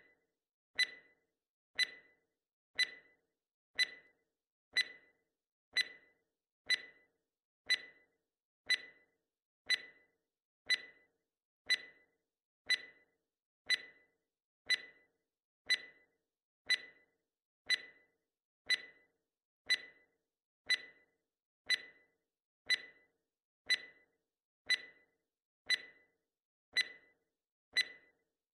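Quiz countdown-timer sound effect ticking steadily once a second, each tick a short sharp click with a brief pitched ring.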